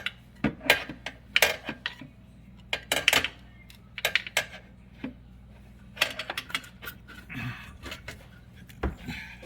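Irregular metal clicks and clanks from working on a built-in GE dishwasher's metal frame and legs to lower it so it comes free from under the counter.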